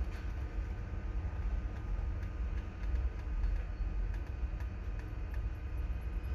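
Steady low rumble, like a ship's engines heard from inside the hull, with a few faint clicks over it.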